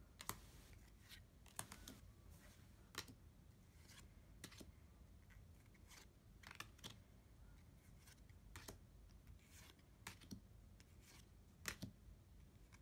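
Faint, irregular clicks and snaps of trading cards and booster-pack packaging being handled and flicked through by hand.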